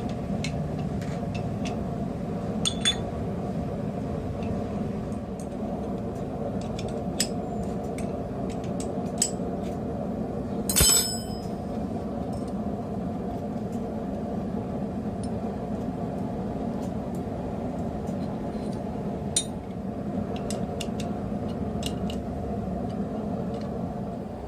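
Steel pieces clinking and tapping against the anvil and jig, a dozen or so light strikes with one louder ringing clank about eleven seconds in, over a steady low drone.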